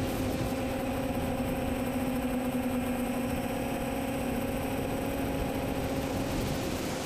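Camone Infinity quadcopter's electric motors and propellers humming at a steady pitch, with wind rush over the airframe.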